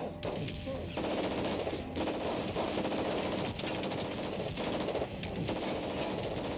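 Automatic weapon fire from a TV drama's soundtrack: rapid, sustained bursts of shots starting about a second in.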